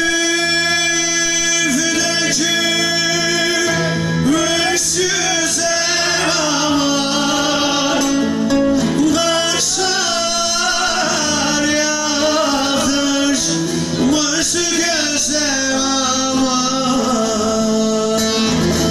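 Turkish folk song (türkü): a male voice sings long, ornamented held notes over a plucked bağlama (saz) accompaniment with a steady low drone.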